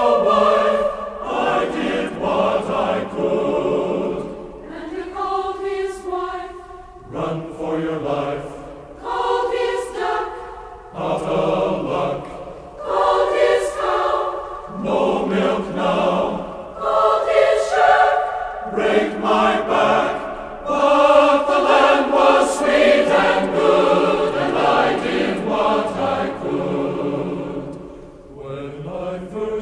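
A choir singing, holding long notes in phrases separated by short pauses.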